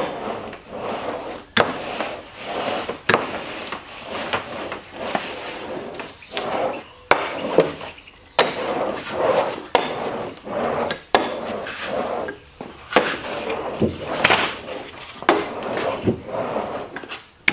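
Wooden rolling pin rolled in repeated strokes over a sheet of Formica laminate, pressing it down onto contact cement to make the bond. The rolling rub swells and fades with each stroke, with sharp knocks here and there.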